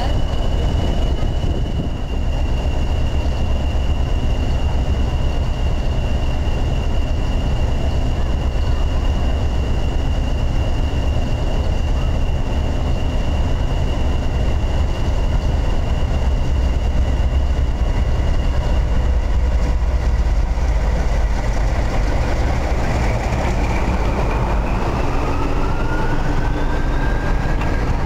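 Class 40 diesel locomotive running as it moves off slowly, with a deep engine rumble and a steady high whistle from its English Electric turbocharged engine. The whistle fades after about twenty seconds, and rising whines follow as a diesel engine revs up.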